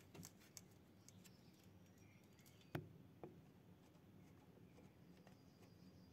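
Near silence with faint clicks and taps of hand work on a ride-on mower's metal parts, springs and fittings, with one sharper click a little under three seconds in and a softer one just after.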